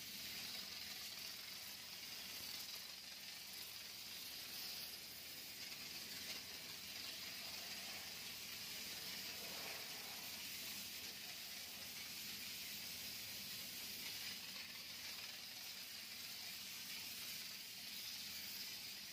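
Steam car wash gun spraying a steady jet of steam onto a car's bodywork, giving a continuous high hiss.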